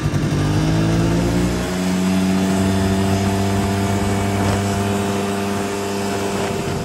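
Snowmobile engine running under way. Its pitch rises over the first couple of seconds and then holds steady, with wind noise on the microphone.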